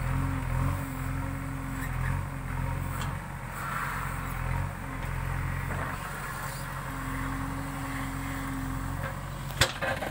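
JCB backhoe loader's diesel engine running steadily while it works, with one sharp knock near the end.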